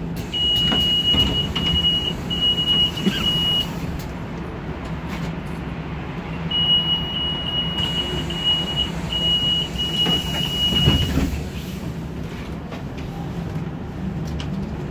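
Running noise inside a moving trolleybus: a steady low hum, with a high thin whine that comes twice in short broken stretches, for about three seconds near the start and about four seconds in the middle.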